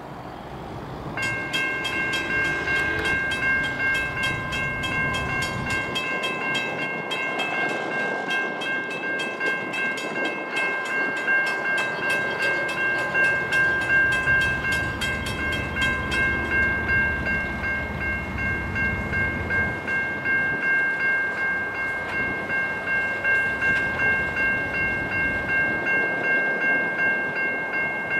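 Level crossing warning bells start about a second in: a Safetran Type 3 electronic bell rings with a steady tone, together with a Western Cullen Hayes mechanical bell striking rapidly. The mechanical bell stops about fifteen seconds later as the boom gates reach the lowered position, while the electronic bell rings on.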